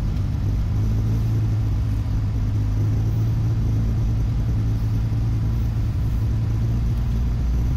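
Steady low drone of a car driving, engine and tyre noise heard from inside the cabin, without change in pitch or level.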